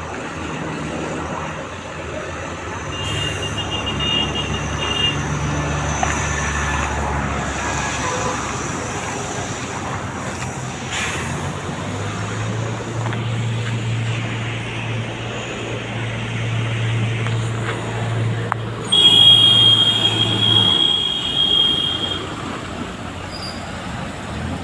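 Road traffic: vehicle engines running with a low hum that comes and goes over a steady wash of noise. About 19 seconds in a loud, high steady tone sounds for two or three seconds.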